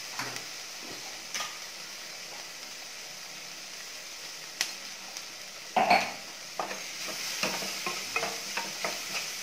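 Chopped onions, green chilli and curry leaves sizzling steadily in oil in an aluminium kadai. About six seconds in, a wooden spatula knocks against the pan and starts stirring, scraping and clattering over and over.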